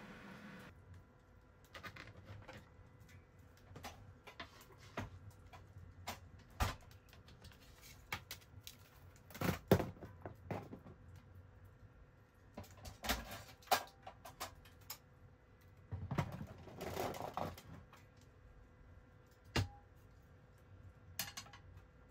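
Scattered knocks, clicks and clatters of cooking gear being handled and set down on a plastic counter, as a slim cassette gas stove and a frying pan are put in place. A longer scraping shuffle comes about three quarters of the way through.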